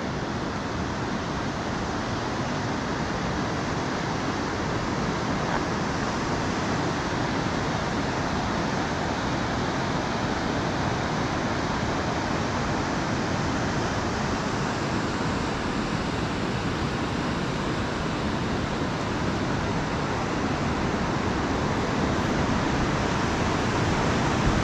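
Steady rushing of the Elwha River's whitewater rapids, a little louder near the end.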